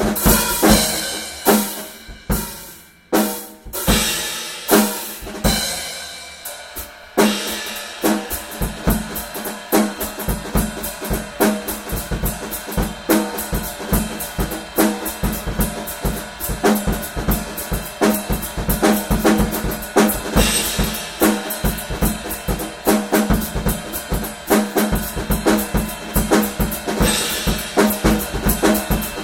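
Music led by a drum kit, with kick and snare playing a busy, fast beat. It thins to a few separate ringing hits for several seconds about two seconds in, then the full beat comes back in.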